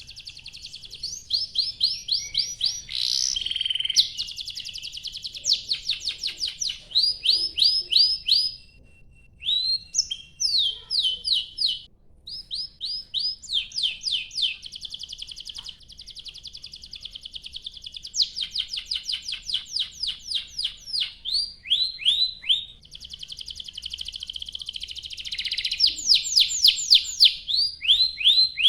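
Domestic canary singing a long, continuous song of rapid repeated chirps and rolling trills, each phrase a quick run of the same note before switching to the next. There are short breaks about a third of the way in.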